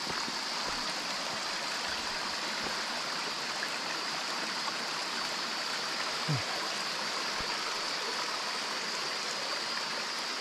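Mountain stream running beside the trail: a steady, unbroken rush of water. A short low sound comes about six seconds in.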